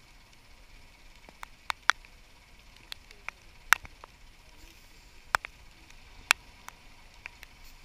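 Water drops falling irregularly onto a hard surface close to the microphone, giving sharp single ticks about once a second, a few of them loud, over a faint steady hiss.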